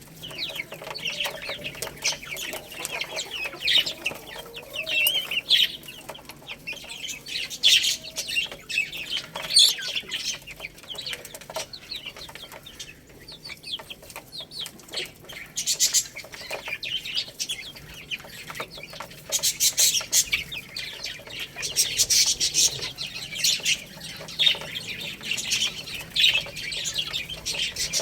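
Baby chicks peeping in a dense chorus of short, high chirps, with sharp taps scattered through.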